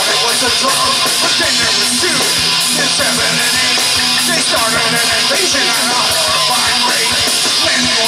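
A live rock band playing loudly: electric guitars, bass guitar and a drum kit with a steady beat, and a man singing into a microphone.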